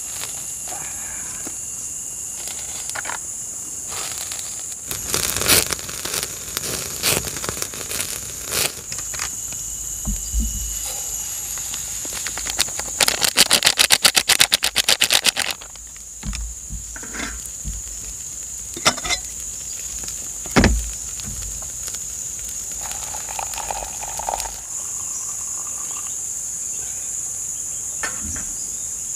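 Steady high-pitched chorus of crickets and other insects, with scattered knocks and clicks. About halfway through, a loud, fast rattle lasts two to three seconds.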